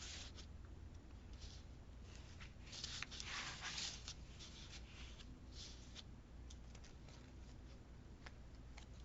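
Faint rustling of paper being handled, with a louder, longer rustle about three seconds in and a few soft ticks.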